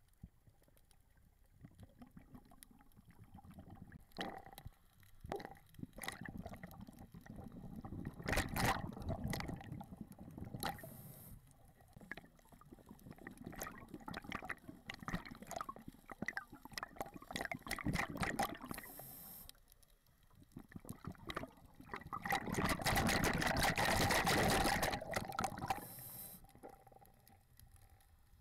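Water bubbling and gurgling close to a waterproofed action camera, coming and going in irregular bursts, with the loudest, densest stretch about 22 to 26 seconds in.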